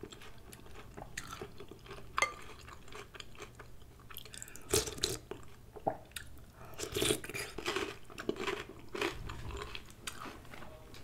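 A person eating spoonfuls of tomato soup with soft chunks in it, chewing with irregular wet mouth clicks and smacks.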